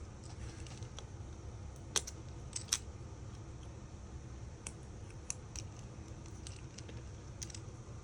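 Small metal tools clicking and tapping against the parts of an iPhone 5 as it is taken apart, a dozen or so sharp irregular clicks, the loudest two about two and three seconds in, over a steady low hum.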